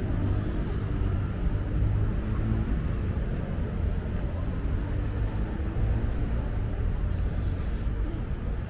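Outdoor city ambience: a steady low rumble of traffic and street noise, with faint distant voices.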